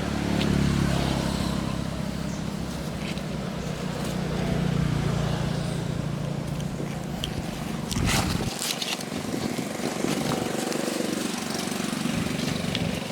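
A small engine running steadily, swelling about four seconds in. Near eight seconds there is a sharp knock and the engine sound drops away, leaving lighter outdoor noise.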